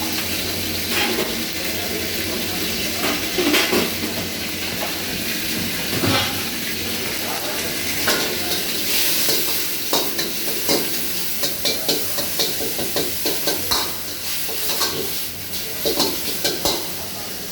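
Food sizzling steadily in a hot pan as it is stir-fried, with repeated clicks and scrapes of a utensil against the pan that grow more frequent about halfway through.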